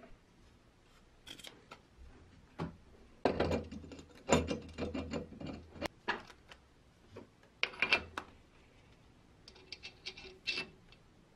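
Clicks, clinks and scrapes of metal parts being handled and fitted onto a bench grinder's shaft as the grinding wheel, its blotter washer and cast flange go back on. They come in irregular clusters, loudest a few seconds in and again about two-thirds of the way through.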